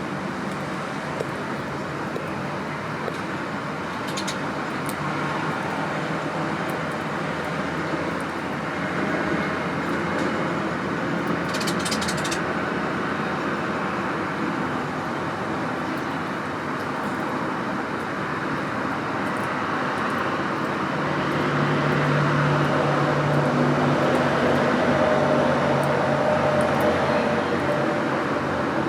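Steady outdoor background noise of the traffic kind, with a low engine hum swelling louder about two-thirds of the way through. A short run of sharp taps comes near the middle.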